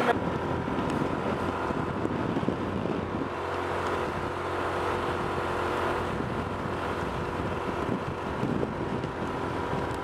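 Motorbike engine running steadily at riding speed, with wind rushing over the microphone.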